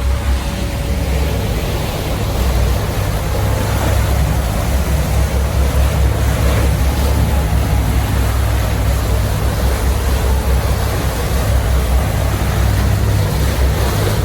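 Motorboat running steadily under way: a constant low engine rumble with wind and water noise over it.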